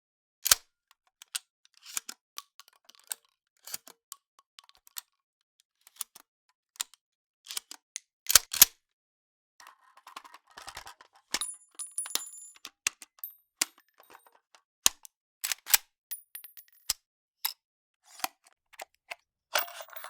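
Firearm mechanism foley: a series of separate sharp metallic clicks and clacks from handling the actions of handguns and rifles, the loudest a quick pair a little past eight seconds. A few clanks leave a high metallic ring hanging briefly, around the middle and again near three-quarters of the way through.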